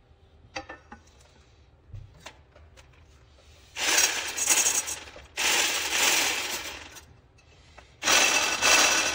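Electric hand blender with a wire whisk attachment whisking egg white in a frying pan. It runs in three bursts of about a second and a half each, the whisk clattering and rubbing against the pan.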